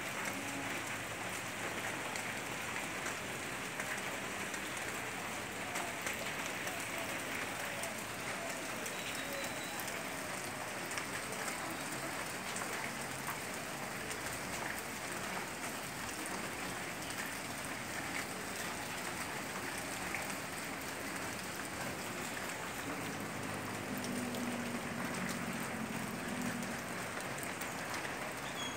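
Heavy rain falling steadily, a dense patter of drops on corrugated metal roofs. A low hum joins in for a few seconds near the end.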